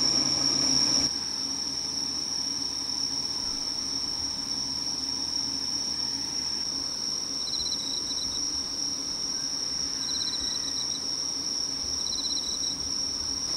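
Night insects, crickets, keeping up a steady high trilling chorus. Three times, about two and a half seconds apart, another insect adds a short pulsed chirp a little lower in pitch.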